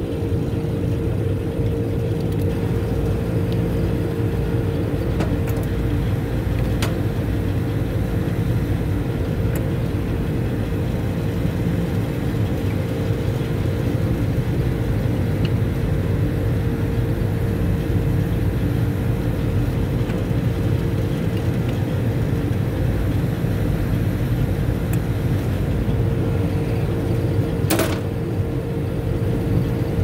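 Steady drone of running rooftop refrigeration and air-conditioning equipment, with a constant mid-pitched hum over a low rumble. A few short metallic clicks from tools on the fittings, the sharpest near the end.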